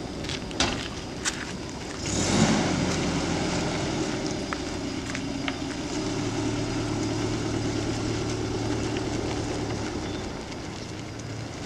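Minivan pulling away on a dirt road. A few light knocks come in the first second or so. About two seconds in the engine picks up with a rush of tyre and gravel noise, and then it settles into a steady engine hum.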